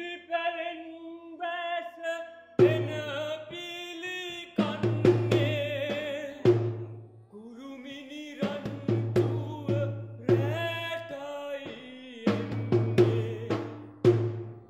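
A two-headed barrel drum played live by hand in groups of strokes, with a held, wavering melodic voice line running over it and alone in the gaps between the drumming.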